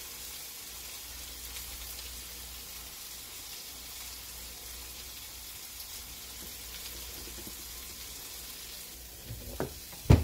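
A steady hiss, with faint soft taps as slices of heirloom tomato are laid onto cheese-spread puff pastry on a tray. A couple of sharper knocks come at the very end.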